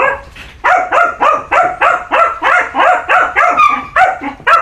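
A dog barking rapidly and repeatedly, about four high-pitched barks a second, each dropping in pitch; the barking resumes after a brief pause at the start.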